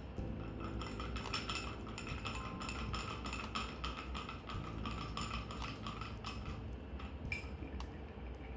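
Bar spoon stirring ice in a glass mixing glass: a steady run of light clinks of ice and spoon against the glass, with one louder clink near the end.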